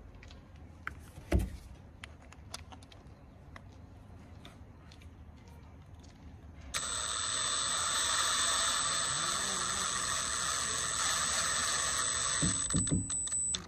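Cordless drill fitted with an Allen key bit running steadily for about six seconds, starting about seven seconds in, screwing a threaded insert nut into a wooden cabinet knob. Before it, light clicks and one knock as the small parts are handled.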